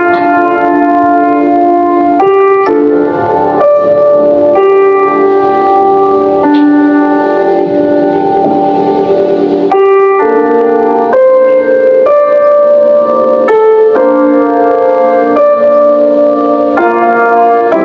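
Keyboard music: sustained chords on an electric piano or organ-like keyboard, changing every second or so.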